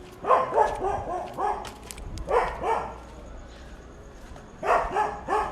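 A dog barking in three bursts of short barks: about four in quick succession at the start, two about two and a half seconds in, and three more near the end, over a steady low street rumble.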